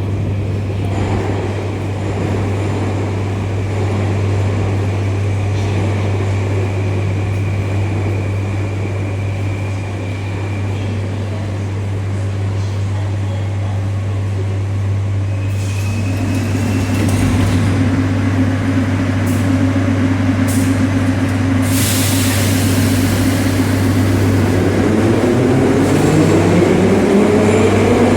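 Moscow Metro train in the station over a steady low hum, with a short hiss of air about two-thirds of the way in, then its traction motors whining and rising in pitch as it accelerates near the end.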